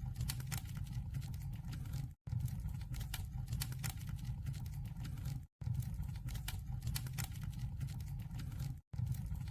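Wood fire crackling in a wood-burning stove, irregular sharp crackles over a steady low rumble. The sound cuts out completely for an instant three times, about every three seconds.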